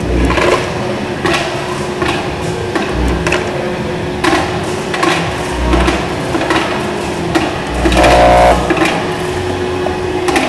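Elevator hopper parts feeder running: parts clattering and knocking irregularly as they are carried up and dropped, over a steady machine hum. A few dull thumps, and a brief buzz about eight seconds in.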